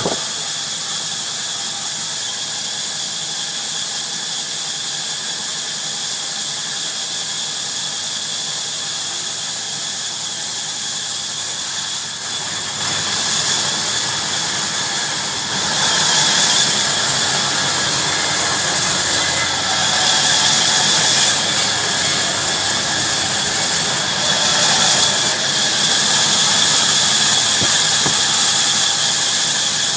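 Heavy-duty bandsaw running and sawing through wood, a steady high whine with hiss from the blade. It grows louder about halfway through as the blade works harder in the cut.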